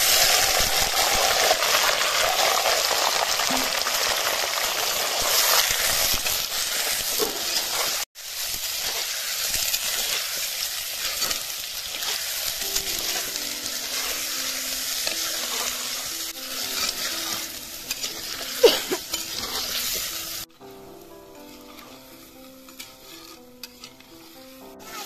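Mutton pieces sizzling in hot oil in a clay handi pot as they are tipped in and stirred with a steel spatula; the sizzle starts loudly the moment the meat goes in. A sharp clink comes late in the sizzling, and soft background music comes in about halfway. The sizzle falls away near the end.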